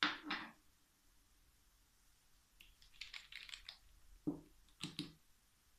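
Light handling noises of small nail-product bottles on a work surface: two quick knocks at the start, a brief crinkly rustle in the middle, and three more knocks near the end.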